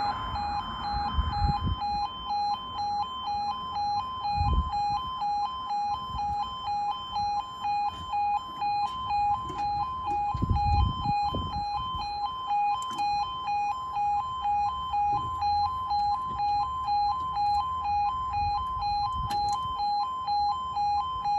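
Level crossing warning alarm (the UK 'yodel'): a two-tone warble alternating between a higher and a lower note about twice a second, sounding while the barriers come down and cutting off suddenly once they are fully lowered.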